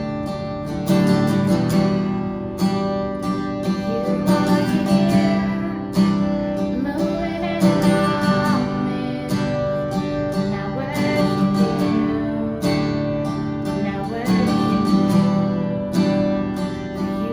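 Acoustic guitar strumming chords in a steady rhythm, playing a worship song.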